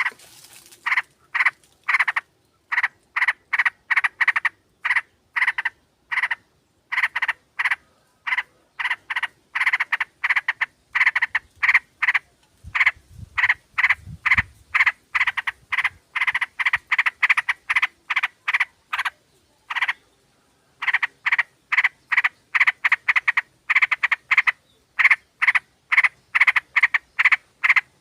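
Yellow-vented bulbuls (trucukan) chattering in a dense run of short calls, about three a second, with a brief gap about six seconds in and another about twenty seconds in.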